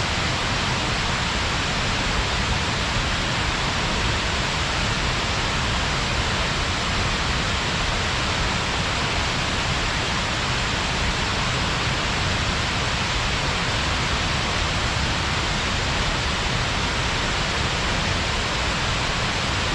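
Shiraito Falls, a wide curtain of many thin spring-fed cascades, rushing steadily: an even, unbroken hiss of falling water.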